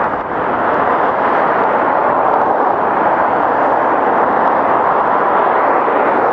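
Loud, steady rush of wind buffeting the microphone of an electric unicycle rider moving into a strong wind.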